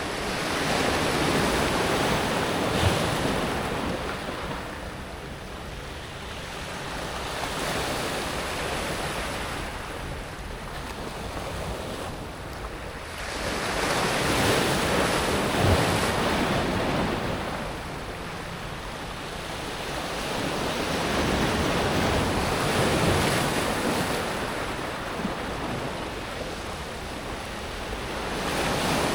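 Sea waves breaking on a pebble beach and washing back over the stones, rising and falling in slow surges several seconds apart, with a few sharp clicks of pebbles.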